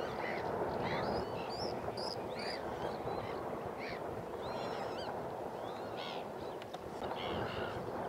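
Many short, high calls from a mixed gathering of waterbirds, scattered and overlapping, over a steady rushing background noise.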